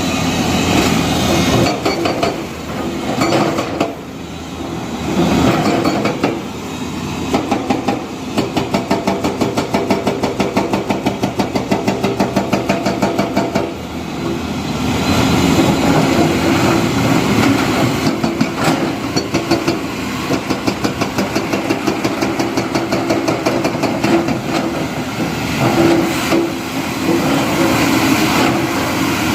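Diesel construction machinery running and working, a loud, dense engine noise. For several seconds in the middle it takes on a fast, even pulsing of about three or four beats a second.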